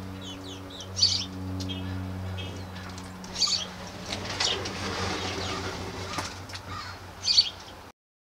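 Small birds chirping, several short high calls a couple of seconds apart, over a low steady hum. The sound cuts off abruptly just before the end.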